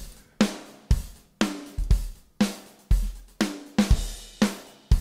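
Sampled drum-kit loop from Superior Drummer playing kick, snare and hi-hat/cymbals in a steady beat, with hits about twice a second.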